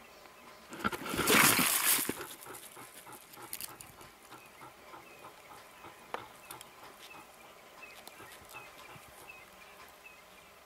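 Leopard and crested porcupine in a close confrontation: a loud, harsh, hissing snarl-like burst about a second in, lasting about a second, then faint scattered clicks and rustling as the two animals move around each other.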